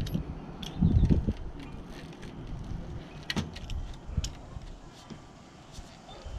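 Handling noise of screen-repair work: scattered light clicks and small metallic rattles, with a few low thumps about a second in and a sharper click a little past the middle.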